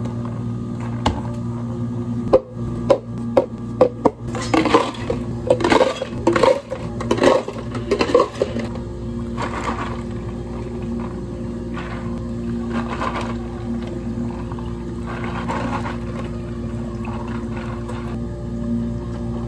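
Ice cubes clattering into tall plastic cups: a rapid run of sharp clicks and knocks for several seconds, then a few softer scrapes and rustles. A steady hum runs underneath.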